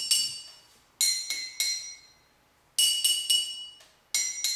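A pencil taps on two glass Coca-Cola bottles holding different amounts of water, about three quick taps on one, then three on the other, back and forth. Each tap rings with a clear note: higher from the bottle with the least water, lower from the one with the most.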